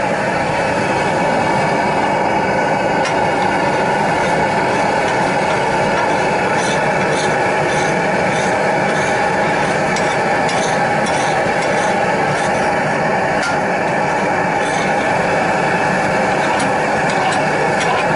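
Metal spatula scraping and stirring pav bhaji on a large flat iron griddle, with scattered light clicks of the blade on the iron, over steady street noise.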